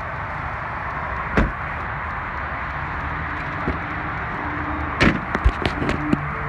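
A 2011 Ford Expedition's side door shuts with a single slam about a second and a half in. Near the end come several quick clicks and knocks as a hand works the rear liftgate handle, over a steady outdoor hiss.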